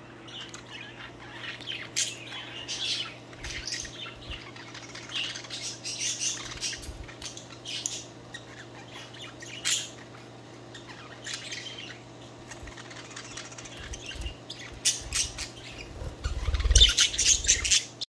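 Several budgerigars chirping and chattering in short, high warbles and squawks, getting louder and busier near the end.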